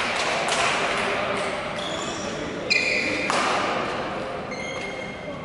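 Badminton rally: rackets hitting the shuttlecock and court shoes squeaking on the hall floor. The sharpest hit comes about halfway through.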